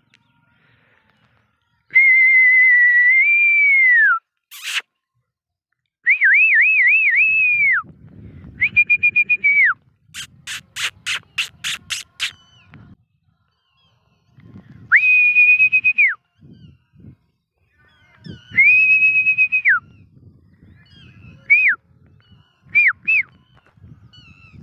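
Loud human whistling in repeated phrases: long held notes that bend down at the end, a warbling trill, and short rising and falling chirps near the end. About halfway through comes a quick run of about nine sharp clicks.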